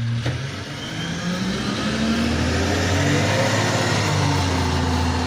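A motor vehicle's engine running, with a steady low hum whose pitch slowly wanders up and down, growing louder toward the middle.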